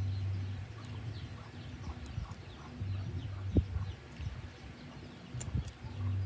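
Chickens clucking in the background, with a low intermittent hum and a single sharp knock about three and a half seconds in.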